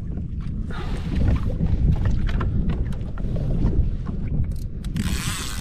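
Wind buffeting the microphone over water moving around a fishing kayak, with a few scattered knocks and a brief hissing rush of water about five seconds in.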